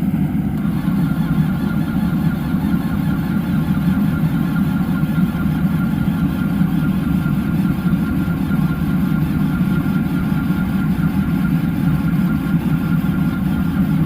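Steady low drone of running machinery, with no cranking or starting heard. A faint, thin, high steady tone starts about half a second in and holds until the end.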